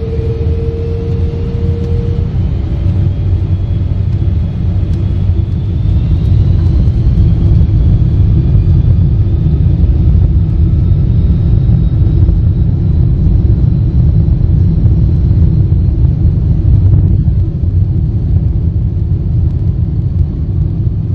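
Boeing 747-400's four Rolls-Royce RB211 turbofans spooling up to takeoff power, heard inside the cabin from a seat over the wing: a deep rumble with a whine rising in pitch over the first several seconds. It grows louder about five seconds in and then holds steady as the jet rolls down the runway.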